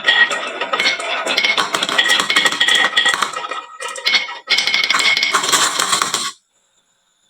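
Many marbles clattering and clinking as they roll down a wooden marble-run slope and pile into toy trucks, a dense rattle that eases briefly about four seconds in and cuts off suddenly about six seconds in.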